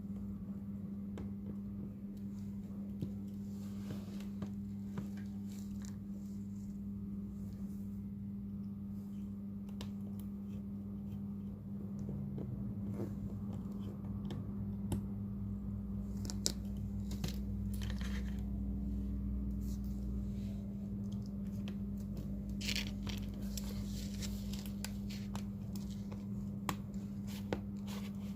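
Steady electrical hum with many small clicks, scrapes and peeling or tearing noises of hands and tools working on a phone during a display repair.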